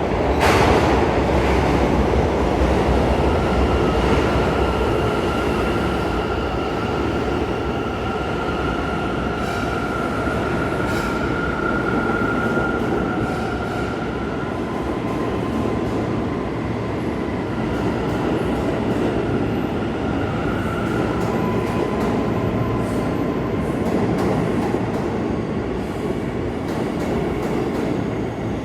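New York City subway train running through the station: a steady rumble of wheels and cars, opening with a sudden loud burst, with long steady wheel squeals from about three seconds in and again later.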